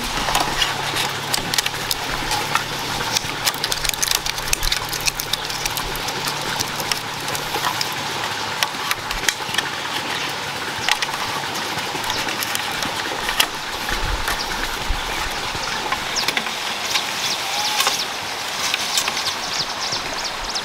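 Bamboo poles and tomato plants being handled while a bamboo trellis is tied up: scattered knocks and clicks with leaf rustling over a steady outdoor hiss. A low engine-like hum runs through about the first half and then fades.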